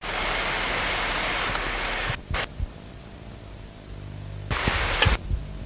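Steady hiss with a low mains-like hum from an old analogue camcorder recording, dropping off sharply with a click about two seconds in. After a quieter stretch of hum, a rush of noise with a couple of knocks comes in near the end.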